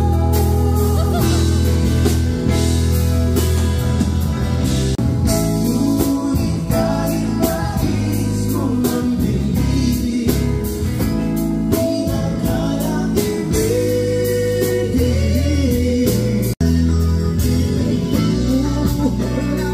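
Live band playing a song, with a male lead singer over electric guitars. The sound cuts out for an instant about three-quarters of the way through.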